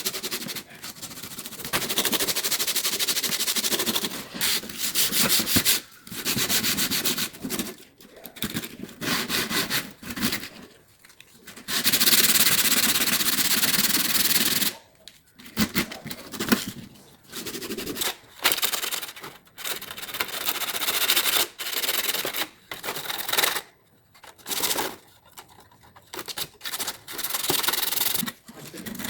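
Abrasive scrubbing on the rusted metal of an old tool box, as rust is sanded or brushed off. It comes in repeated bursts of a second or a few seconds with short pauses between, including one longer steady stretch near the middle.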